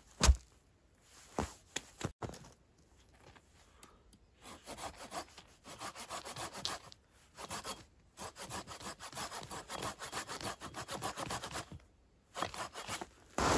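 Small hand saw cutting through a wooden branch in quick back-and-forth strokes from about four seconds in, with a brief pause midway. A few sharp knocks come in the first two seconds, and louder ones near the end.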